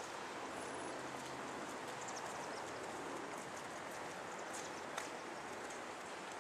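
Steady hiss of outdoor background noise as a group walks on a paved path, with a few faint light clicks, one a little after the middle.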